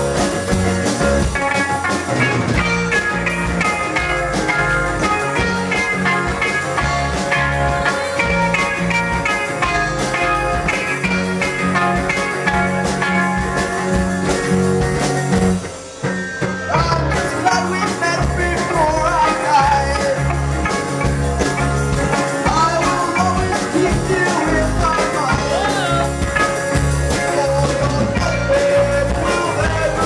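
Live band playing: upright bass, hollow-body electric guitars and drum kit. The music drops out briefly about halfway through, then carries on.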